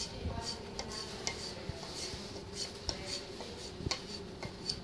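Takamura HSPS Pro honesuki blade stroked back and forth on a wooden paddle strop, a light scraping tick about two to three times a second. The stropping removes the burr raised on the 3000-grit finishing stone.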